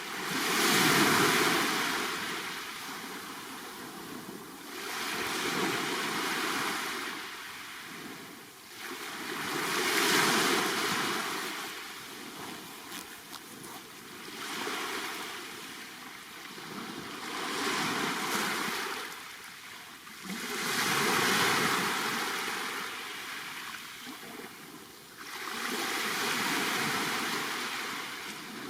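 Black Sea waves breaking on the shore. Each wash swells up and dies away, about seven in a row, one every four seconds or so.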